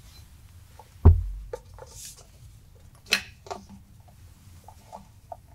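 Handling knocks and clicks as the mud motor's transmission is worked on to drain its oil, with one heavy low thump about a second in and a sharp click about three seconds in.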